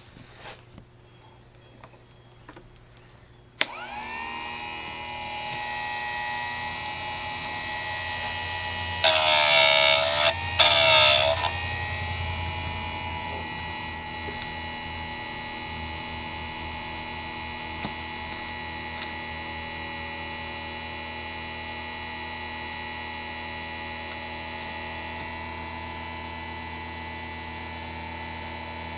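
Harbor Freight electric chainsaw sharpener switched on a few seconds in, its small motor spinning the grinding wheel up to a steady whine and hum. About a third of the way in, two loud harsh bursts of grinding come as the wheel is brought down onto a chain tooth, the motor pitch sagging under the load. Afterwards it runs freely with a steady hum.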